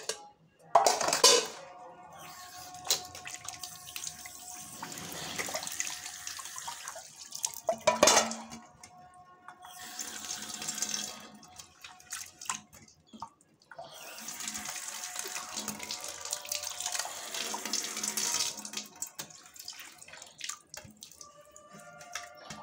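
Water being poured and sloshed out of steel pots as they are rinsed by hand, in several long splashing pours. Sharp clanks of steel pots knocking together, the loudest about a second in and about eight seconds in.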